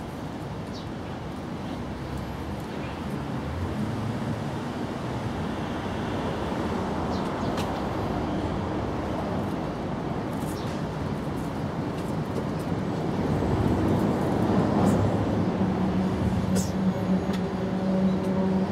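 Background motor-vehicle traffic: a steady rush of road noise with an engine hum that grows louder in the last few seconds.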